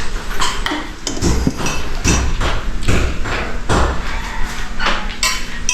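A regular series of sharp knocks or thumps, about one a second.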